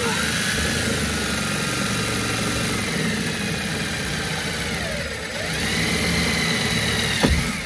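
DeWalt cordless drill running under load as it bores a pilot hole through the plastic speaker bracket and foam into the door's sheet metal. The motor whine dips briefly about five seconds in, picks up again, and stops with a knock shortly before the end.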